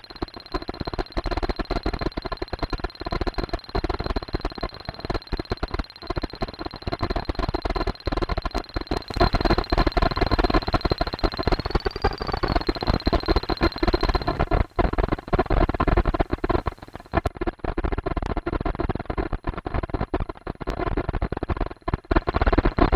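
Experimental soundtrack of dense crackling noise full of sharp clicks, under a steady high thin tone that bends up briefly about halfway through and then grows fainter.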